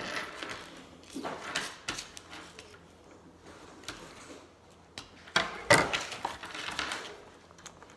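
Small plastic Lego pieces handled and fitted together: scattered light clicks and rattles, with two sharper knocks in quick succession a little past the middle.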